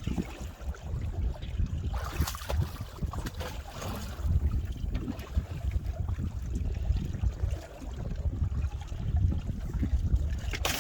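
Wind buffeting the microphone in uneven gusts, with the noise of choppy water around a small boat.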